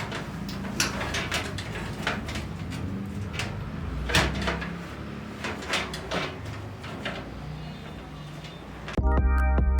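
Scattered clicks and knocks as a CPU cooler is set onto the processor and fitted to the motherboard. Music comes in near the end.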